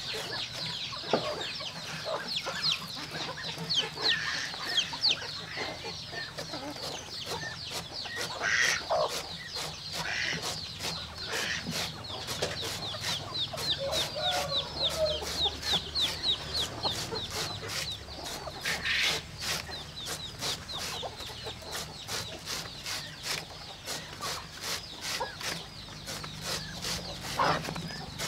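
Chickens clucking while a large knife slices a banana stem in quick, regular strokes, about four a second, each a sharp click.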